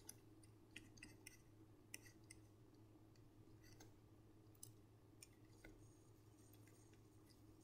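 Near silence: faint scattered ticks and scratches of a pen writing on paper, over a low steady hum.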